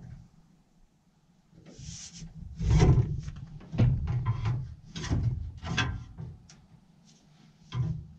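Irregular clunks, knocks and scrapes of steel parts being handled inside a John Deere S670 combine's grain tank as the vertical auger is worked into place.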